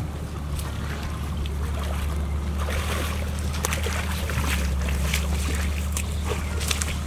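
A steady low engine drone, with scattered splashes and sloshing as a fishing net is hauled through shallow pond water.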